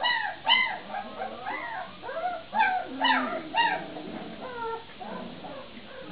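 Vizsla puppies yipping and whimpering in a run of short, high, arching cries, several overlapping, which thin out after about four and a half seconds.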